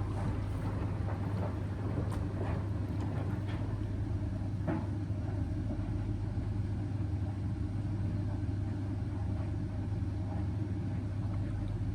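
Steady low mechanical hum of laundry appliances running: a tumble dryer together with an Indesit washing machine in the late main wash, with a few faint light clicks.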